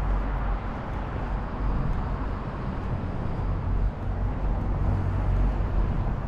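Outdoor street ambience: road traffic noise with a steady low rumble.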